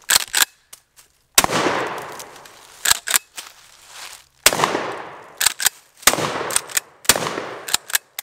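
Pump-action shotgun fired four times, a shot every one to three seconds, each blast trailing off in an echo. Between shots come quick mechanical clacks of the pump being racked to chamber the next shell.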